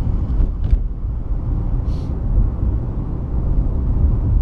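A car driving slowly over rough pavement, heard from inside the cabin as a steady low rumble of engine and tyres, with a brief soft hiss about two seconds in.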